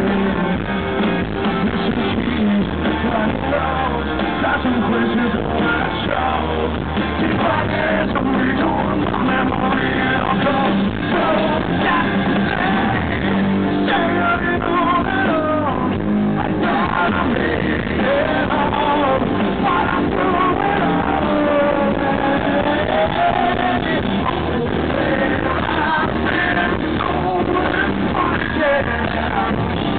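Live rock band playing loudly, with a male lead singer's voice over electric guitars.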